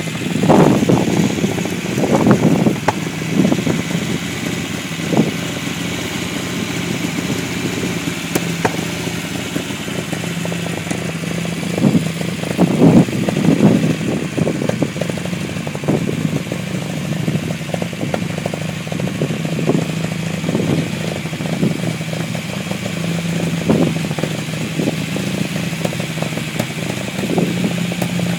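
Unimog 404's petrol straight-six engine running steadily on its first start after a rebuild and rewire, with a few short louder surges in the first three seconds and again about twelve to fourteen seconds in.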